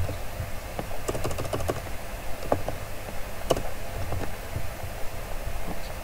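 Computer keyboard keys clicking as a value is typed: a quick run of keystrokes about a second in, then a few single clicks, over a steady low hum.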